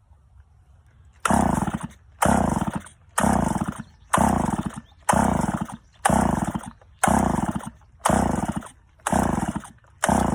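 Chainsaw's recoil starter cord pulled about ten times in a row, roughly once a second, each pull a short whir that fades. The spark plug is out and the switch is off, so the engine spins over without firing: this clears excess fuel from a flooded combustion chamber.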